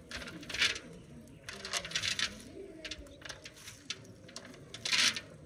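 Doves cooing in the background while raisins are scooped by hand in a metal bowl, making several short rustling bursts, the loudest about half a second in and near the end.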